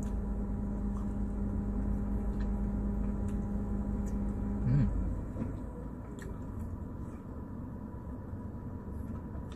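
A steady machine hum with a low rumble, which cuts off about five seconds in. Faint biting and mouth sounds come from eating a chocolate-filled ice cream bar, with a few small clicks.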